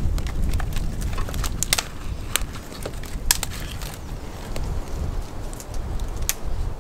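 Wind buffeting the microphone as a steady low rumble, with irregular sharp crackles and snaps scattered through it.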